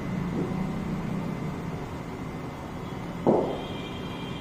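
Steady low hum of an indoor cricket net hall between deliveries, with one short dull thump about three seconds in.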